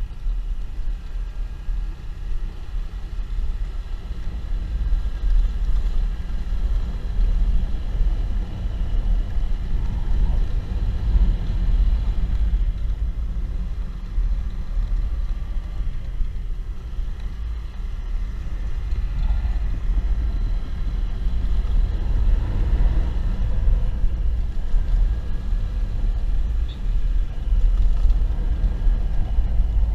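Steady low rumble of wind buffeting the microphone and road noise from a moving motorcycle.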